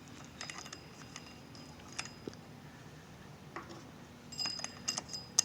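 Scattered light metallic clicks and clinks, a few ringing briefly, from small metal parts of a scooter's belt-drive transmission being handled, with a quicker cluster of them near the end.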